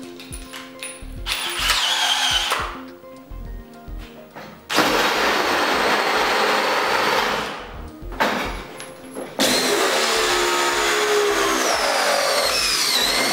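Cordless drill running in three bursts, spinning a flaring bit and then a swaging bit into the end of soft copper tube; the pitch wavers in the last, longest burst. Background music with a steady beat runs underneath.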